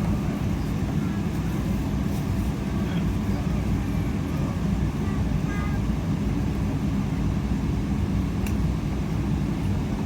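Steady low vehicle rumble, even in level throughout, with faint voices underneath.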